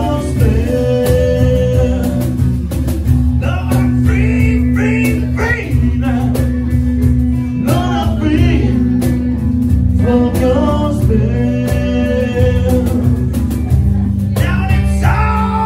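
Live blues band playing: a male lead vocal sung through a microphone over guitar, steady low bass notes and hand percussion.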